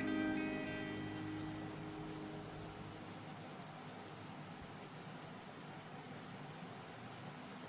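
A cricket chirping, a faint steady high trill with a quick pulse, as background music dies away in the first second.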